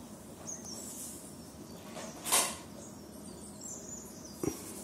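Faint scratching of a pencil writing on notebook paper. A short hissing noise about two seconds in is the loudest sound, and a light knock comes near the end.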